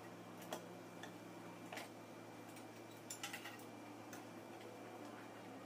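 Scattered small clicks and taps of compressor parts being handled and fitted, with a quick run of three clicks about three seconds in, over a steady low hum.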